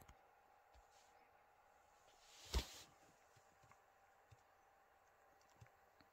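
Near silence: room tone with a faint steady hum, a few tiny ticks, and one brief soft noise that swells and peaks about two and a half seconds in.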